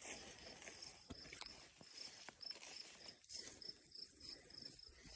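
Faint, steady insect chirping, a short pulse repeating about three times a second, with a few faint clicks.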